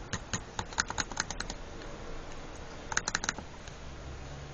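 Laptop keys being typed: a quick run of about ten keystrokes in the first second and a half, then a short burst of four or five keystrokes about three seconds in.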